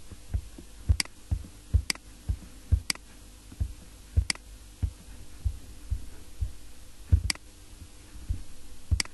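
Computer mouse clicking, with sharp single clicks about a second apart; the loudest comes a little after 7 seconds in. Softer low thumps come between the clicks, over a faint steady hum.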